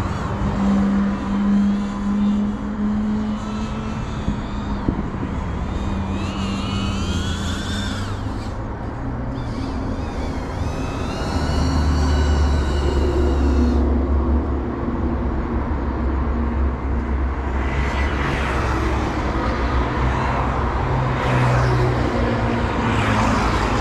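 GEPRC CineLog35 FPV cinewhoop's motors whining, the pitch gliding up and down as the throttle changes, heard from the pilot's spot. A low vehicle rumble runs underneath and swells about halfway through.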